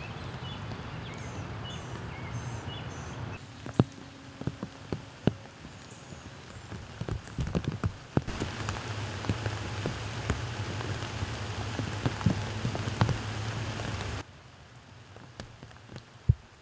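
Steady rain falling on leaves and grass, with individual drops tapping close by as sharp single taps. The level jumps up and down abruptly a few times.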